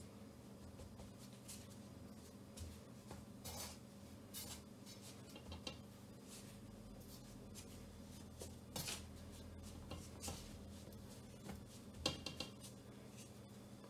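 Hand pressing and rubbing raw chicken in dry seasoned flour in a stainless-steel bowl: faint soft rustling with a few light scrapes scattered through, over a low steady hum.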